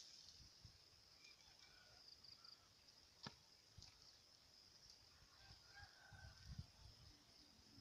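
Near silence: faint outdoor background with a steady high hiss, one sharp click about three seconds in, and faint distant bird calls in the second half, of the kind that suggest fowl.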